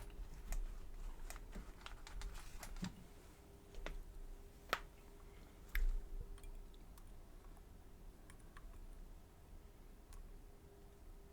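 Small, irregular clicks and ticks of lock picking tools working in the keyway of a Mul-T-Lock Garrison lock. They come thickly at first, with two sharper clicks around the fifth and sixth seconds, then thin out.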